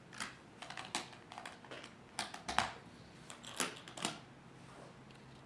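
A string of light, irregular clicks and taps, about a dozen over four seconds, trailing off near the end.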